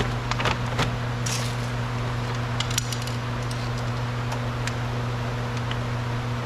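Scattered light clicks and knocks of hard plastic car-door parts and wiring being handled, most of them in the first second and a half, over a steady low hum.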